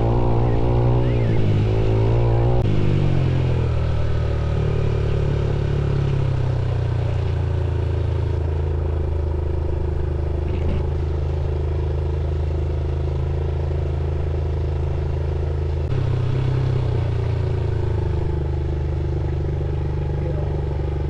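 Motorcycle engine running, its note dropping about three seconds in, then holding steady, and changing again about sixteen seconds in.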